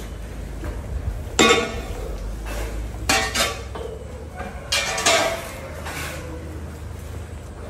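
Several sharp metallic clanks with brief ringing, the loudest about one and a half seconds in, typical of water buffalo horns knocking against a steel pipe feeding rail, over a steady low hum.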